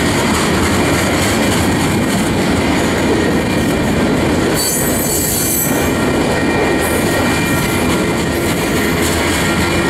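Covered hopper cars of a freight train rolling past close by: a steady, loud rumble and rattle of steel wheels on the rail. A faint, thin, high whine runs through it, and a brief burst of hiss comes about halfway through.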